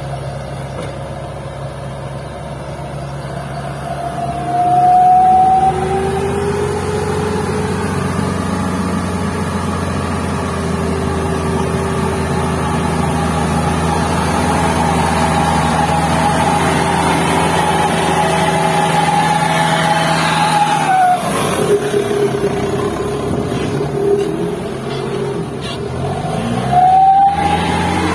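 Isuzu light dump truck's turbo-diesel engine working hard under a full load of soil as it pulls through mud. Its revs climb a few seconds in and hold high and steady. About three quarters of the way through they drop sharply, then climb again near the end.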